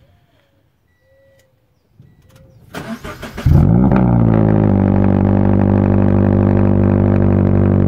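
Toyota 86's 2.0-litre flat-four, on its stock exhaust manifold and a Tomei Type-80 catback, cold-started at the tailpipe: a brief crank about three seconds in, then the engine catches with a loud flare that falls away and settles into a steady cold idle.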